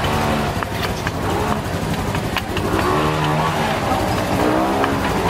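Chopstick clicking against a metal ladle as it stirs bubbling sugar syrup for dalgona honeycomb candy, over a steady low hum and voices in the background.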